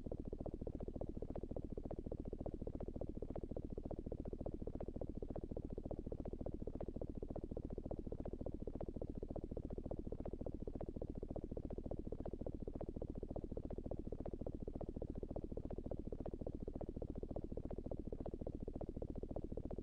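Synthetic digital glitch sound effect: a low, dense, rapidly crackling buzz of fast clicks that runs on steadily without a break.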